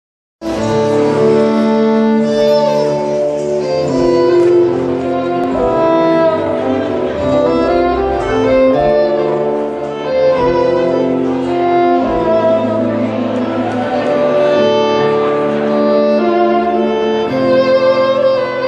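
Live folk band playing, with a fiddle carrying the tune over sustained lower strings; the music cuts in abruptly about half a second in.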